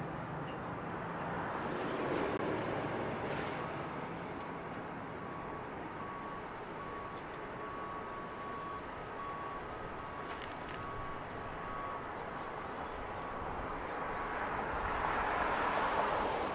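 Outdoor traffic noise with vehicles passing, swelling about two seconds in and again near the end. Through the middle, a construction vehicle's reversing alarm beeps in a steady series.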